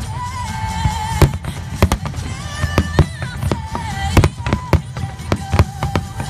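Aerial firework shells bursting in a rapid series of sharp bangs, several a second, during a fireworks display, with show music playing alongside.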